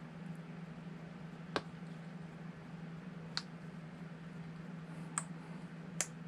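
Four light, sharp clicks of small RC crawler axle parts being handled and fitted, the last two close together, over a steady low hum.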